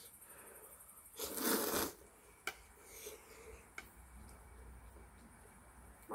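A loud slurp of hot ramyeon noodles a little over a second in, lasting under a second, followed by two light clicks of chopsticks against the metal pot lid.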